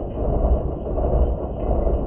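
Pegard horizontal milling machine cutting a steel block: a steady low machining drone that swells and fades slightly about every half second.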